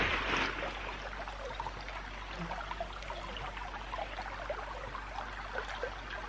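Shallow creek water running and trickling steadily, with a short louder rush right at the start.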